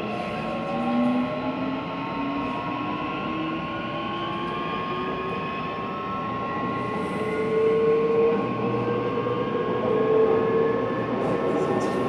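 Shinbundang Line metro train running in a tunnel while it picks up speed. The traction motor whine climbs slowly in pitch over the rumble of the wheels on the rails, with a steady high tone held throughout.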